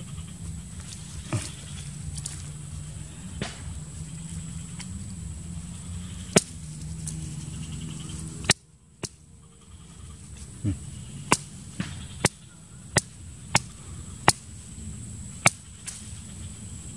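A series of sharp whacks as a freshly caught eel is struck on the ground, a few scattered at first, then a run of about six roughly a second apart in the second half.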